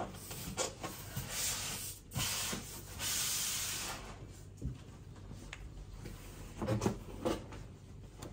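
Handling noise: a small statue head sculpt is rubbed and turned in the hand, with scattered light clicks and knocks. A hiss about a second long, about three seconds in, is the loudest part.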